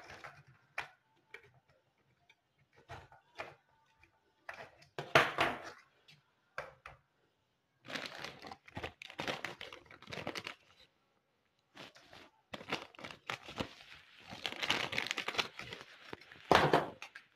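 Frozen green chutney cubes being taken out of a plastic ice-cube tray and put into a plastic zip-lock bag: irregular clicks and knocks from the cubes and tray, with spells of plastic bag crinkling, loudest about five seconds in and near the end.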